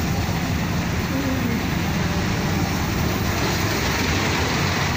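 Steady rumble of a small dragon-themed fairground roller coaster's cars running along their track.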